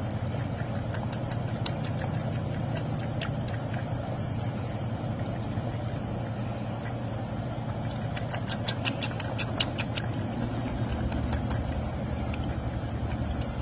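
A steady low mechanical hum, with a quick run of sharp clicks about eight to ten seconds in.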